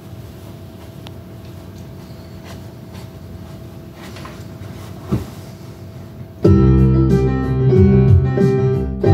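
A low steady hum with a single thump about five seconds in, then, about six and a half seconds in, an electronic keyboard starts playing loud held chords over a bass line in a piano sound.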